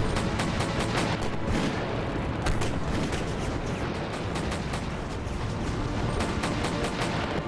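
Staged battle gunfire: dense, irregular volleys of rifle and pistol shots, several a second, overlapping without pause.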